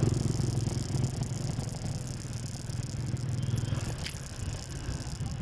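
Motorcycle engine running at a low, pulsing rumble, with a single sharp click about four seconds in.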